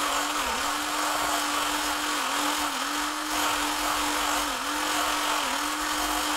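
Handheld electric whisk running steadily as it whips body butter of shea butter, cocoa butter and grapeseed oil in a plastic container, its motor tone dipping briefly about five times.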